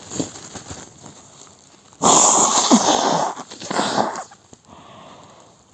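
A person blowing their nose: a long, loud blow starting about two seconds in, then a second, shorter blow about a second later.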